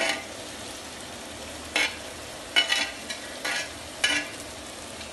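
Diced potato, onion and capsicum frying in ghee in a pan: a steady sizzle, with a metal spoon scraping and knocking in the pan several times as diced tomato is added and stirred in.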